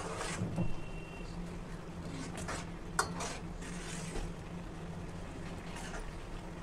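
Steel ladle stirring and scraping through a bubbling mixture of grated raw mango and melted jaggery in a metal pan, in repeated strokes, with one sharper clink of the ladle against the pan about three seconds in.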